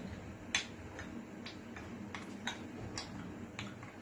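Light clicks, roughly two a second at uneven spacing, as pieces of dark baking chocolate are dropped into a glass cup.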